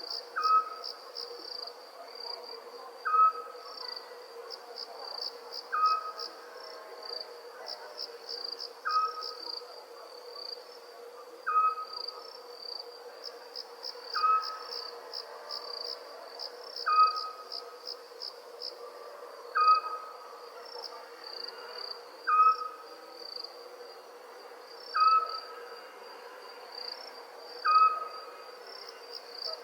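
Night ambience: crickets chirping in fast, high pulsed trills, with a short call from a night creature repeating regularly about every two and a half to three seconds, the loudest sound, over a faint steady hum.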